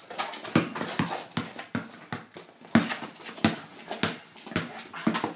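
Basketball dribbled on an indoor court floor: a run of sharp bounces at an uneven pace as the player works for space.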